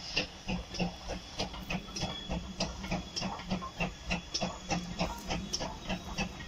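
Steam locomotive working a passenger train, its exhaust beating in a steady chuff of about three beats a second.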